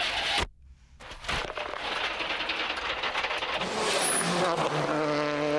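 A brief dropout at a cut, then a rally car running flat out: a noisy rush, with the engine note coming up steady and growing louder over the last two seconds.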